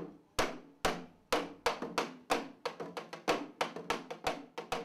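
Janggu, the Korean hourglass drum, beaten with a stick in a dance rhythm. The sharp strokes start about half a second apart and quicken to a brisk, steady pulse.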